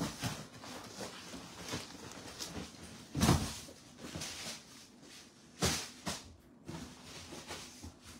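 Irregular rustles and knocks of boxes and plastic-wrapped packages being handled and moved, with a louder thump about three seconds in and two more knocks near six seconds.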